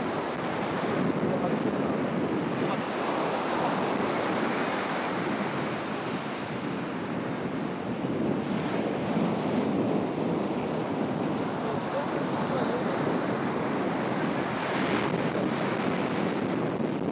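Surf breaking and washing up a sandy beach, a steady rushing.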